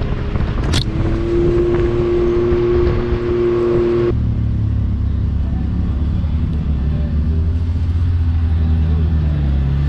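Can-Am Maverick X3 Max UTV's turbocharged three-cylinder engine running steadily while towing a trailer along a dirt trail, with one sharp click about a second in. About four seconds in the sound cuts abruptly to a lower, deeper engine rumble at slow speed.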